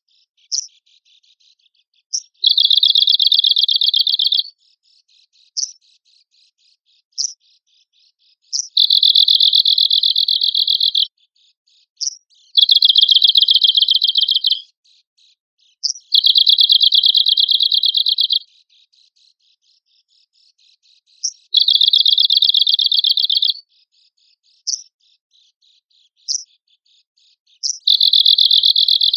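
Arctic warbler (cikrak kutub) singing: dry, rapid buzzing trills about two seconds long, repeated every four to six seconds, with short sharp call notes between them.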